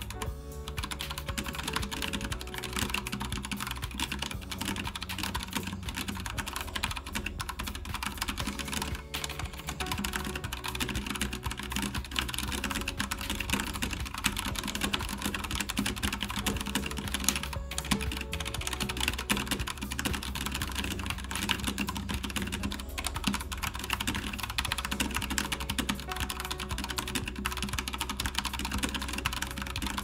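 Fast touch-typing on a Velocifire VM01 full-size mechanical keyboard with tactile, non-clicky Cherry MX Brown clone switches: a dense, continuous clatter of keystrokes at about 115 words per minute. Background music plays underneath.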